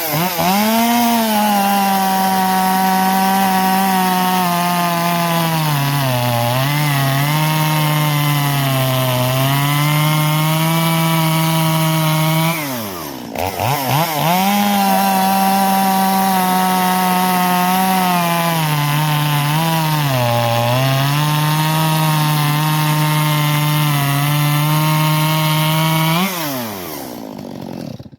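Stihl MS250 45cc chainsaw cutting wood at full throttle. Its engine pitch sags each time the chain loads in the cut and picks back up. About halfway the revs drop briefly and climb again for a second cut. Near the end the engine comes off throttle and winds down.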